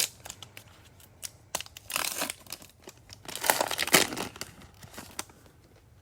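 Plastic cello wrapper of a baseball card pack being torn open and crinkled, with two louder noisy stretches about two and three-and-a-half seconds in, among light clicks and rustles of handling.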